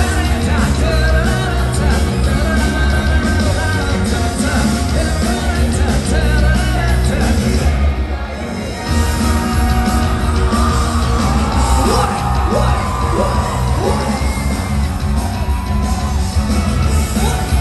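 Loud live rock music with heavy bass and singing, played through the PA of a large hall, with a crowd yelling along. The music drops back briefly about halfway through, then returns at full level.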